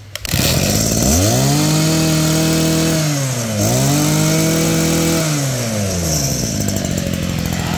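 Makita MEM262L 26 cc brush-cutter engine, primed and choked, pull-started and catching at once. It is revved up twice with the throttle, dropping back briefly between the revs, then settles to a steady idle.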